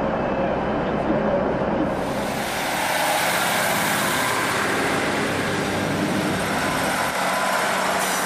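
Northern Rail diesel multiple-unit train moving along the platform: a steady rush of engine and wheel noise that starts about two seconds in, after a short stretch of platform crowd murmur.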